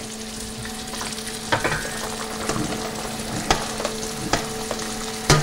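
Veal sizzling in hot oil in a sauté pan, a steady frying hiss, with a few light clicks of a utensil against the pan.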